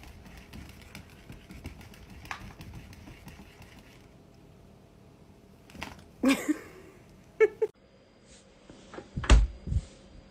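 Young kittens mewing: one loud mew about six seconds in and a short one a second later. Near the end come two dull thumps close together, the first the loudest sound of all.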